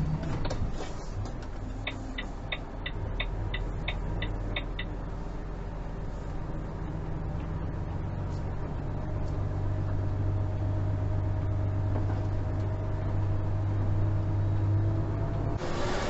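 Engine of the dash-cam vehicle running steadily as it drives along, with a run of about ten quick, evenly spaced high ticks a couple of seconds in. Near the end the sound changes abruptly.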